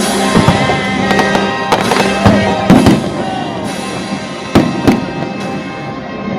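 Fireworks bursting in a run of sharp bangs, several close together in the first three seconds and two more near the five-second mark, over steady music.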